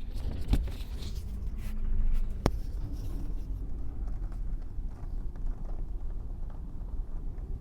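Car interior rattles and knocks while driving over a rough, bumpy road surface, over a steady low rumble of road noise, with two sharp knocks about half a second and two and a half seconds in. These are cabin rattles from loose parts, set off by the uneven road, whose exact source can't be located.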